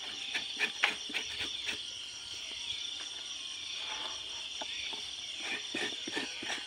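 A cleaver knocking and chopping through a thick animal hide on a table: a cluster of sharp strokes in the first second or two, a softer rustle of the hide being handled midway, then more strokes near the end. A steady high insect drone sounds underneath throughout.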